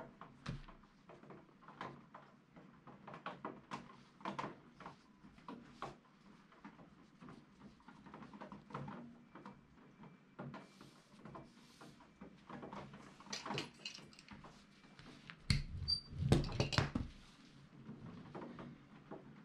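Canvas fabric being handled and folded by hand on a work table: soft rustles, taps and creasing strokes, with a brief cluster of louder thumps on the table about sixteen seconds in.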